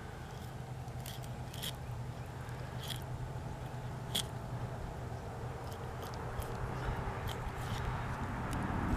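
A fillet knife slicing along a catfish's backbone, giving short crisp snipping clicks every second or so as the blade cuts through flesh and small bones, over a steady low hum.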